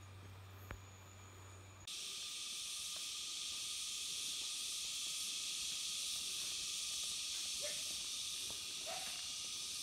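Steady high-pitched outdoor hiss that starts abruptly about two seconds in, replacing a faint low hum.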